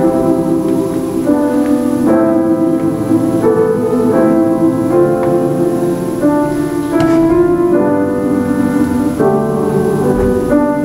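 Piano music: slow, sustained chords that change about once a second.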